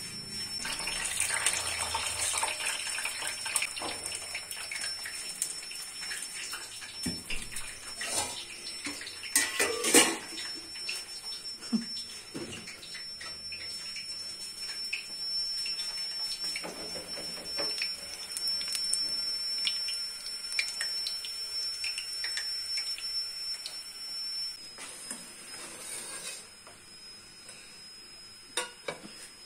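Water running steadily in a kitchen sink, with knocks and clinks of stainless steel pots. The water stops a few seconds before the end, leaving a few clinks of steel bowls being stacked.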